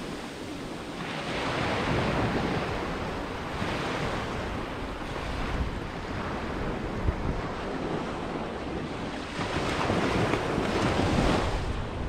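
Sea waves breaking and washing up a sandy beach, rising and falling in swells a few seconds long, the loudest near the end.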